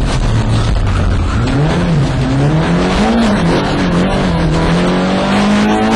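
Zastava Yugo rally car's engine heard from inside the cabin under hard driving. The revs hold for about a second and a half, then rise and drop twice in quick succession as the driver changes up through the gears, then climb steadily again.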